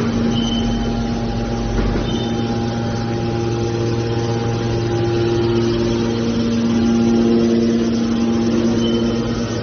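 Hydraulic aluminium baler running, its pump motor giving a steady, loud mechanical hum.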